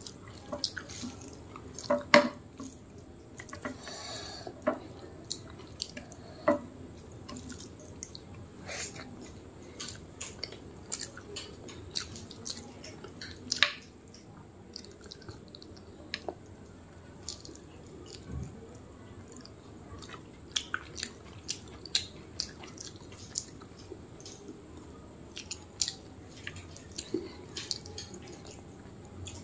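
Close-miked eating by hand: wet squishing as rice is mixed with mutton curry by fingers, with chewing and mouth smacks heard as many scattered sharp clicks.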